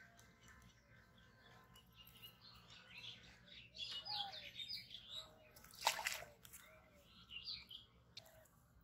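Small birds chirping faintly and intermittently, with one short sharp sound about six seconds in.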